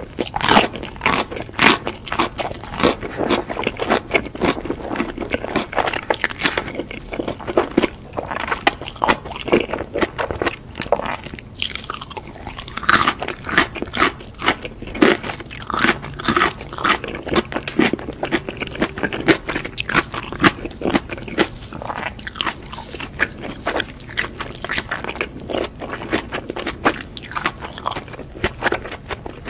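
Close-miked chewing of crunchy crumb-coated fried food, a dense stream of crackly crunches and wet mouth sounds.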